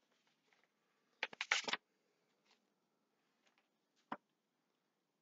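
Paper being handled, an envelope and card rustling and crinkling in a short burst about a second in, then a single sharp click near four seconds; otherwise quiet room tone.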